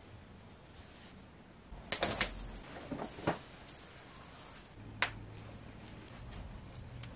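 Metal snap buttons on a satin bomber jacket popping open as the front is pulled apart: a quick run of clicks with fabric rustle about two seconds in, a few more clicks, then one single sharp snap click about five seconds in.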